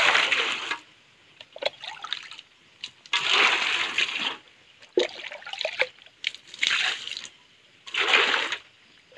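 Water sloshing and splashing in a basin in four short bursts a few seconds apart, with small drips and taps between them.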